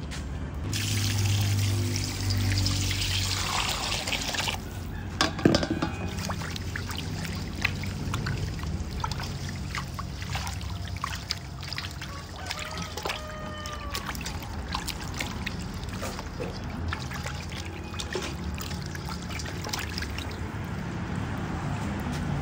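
Water poured from a container into a stainless steel bowl of raw pork leg pieces for about four seconds. A sharp knock follows, then water sloshing and splashing with small clinks as hands rub and wash the meat in the bowl.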